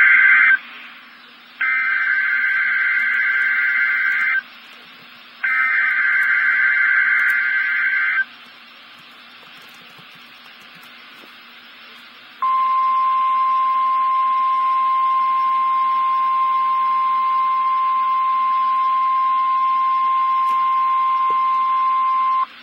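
NOAA Weather Radio Emergency Alert System activation: three bursts of the SAME digital header, warbling data tones (the first already underway), then after about four seconds of hiss the single steady 1050 Hz weather alert tone, held for about ten seconds and cut off sharply. A faint steady hum sits underneath throughout.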